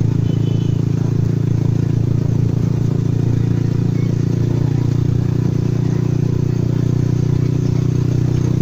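Small motorcycle engine running steadily at an even cruising speed, heard from the moving bike, with a constant drone and no change in pitch.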